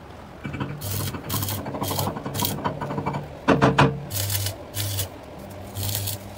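Stick welding on thick steel plate: the arc crackles and hisses in short bursts of about half a second, each with a low buzz. A loud metallic clatter comes about three and a half seconds in.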